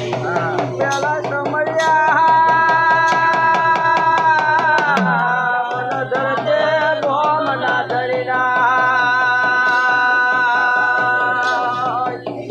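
Devotional jagar song to the goddess Kali: a singer holds long drawn-out notes over a steady hand-drum beat, with a short break in the held note around the middle.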